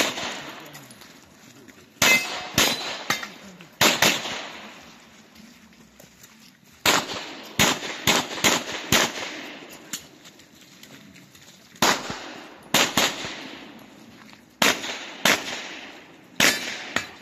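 Handgun shots fired in rapid strings of two to five, with pauses of a second or more between groups, each crack trailing off in echo: a competitor shooting an IPSC stage, engaging targets with quick follow-up shots.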